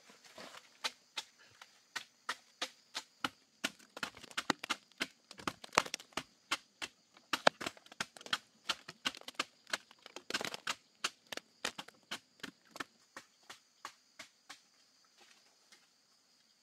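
A machete chopping bamboo: sharp, evenly spaced strikes about three a second, loudest in the middle and tapering off before they stop near the end.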